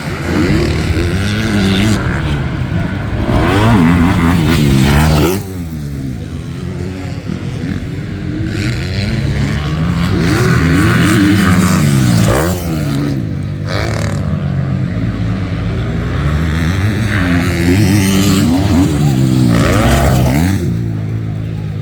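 250-class motocross bikes racing, their engines revving up and down in pitch again and again with throttle and gear changes, swelling louder several times as bikes come close.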